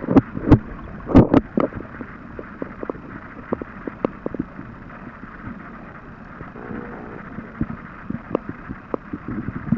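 Water heard through a submerged camera: a muffled steady rush with irregular sharp clicks and knocks, the loudest cluster about a second in.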